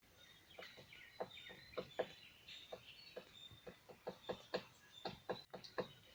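A woodpecker pecking at wood: faint, irregular single taps, about three a second. Small birds chirp alongside.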